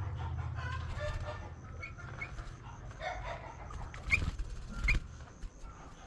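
Chickens clucking in the background, with a low hum that fades out in the first couple of seconds. Two sharp clicks, each with a short high chirp, come about four and five seconds in.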